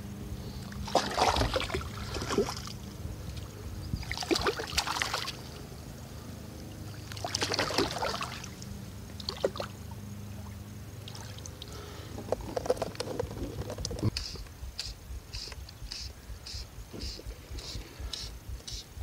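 Kayak paddle strokes: the blade dipping and pulling through the water with splashes and drips, one stroke every two to three seconds. Near the end a quick regular run of short, high hissing ticks, about two a second, takes over.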